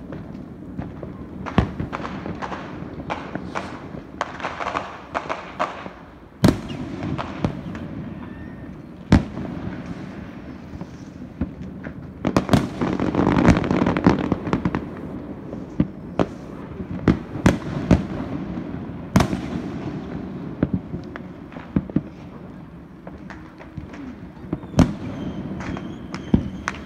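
Fireworks going off: sharp bangs at irregular intervals, with denser stretches of crackling about four to six seconds in and again around twelve to fourteen seconds in.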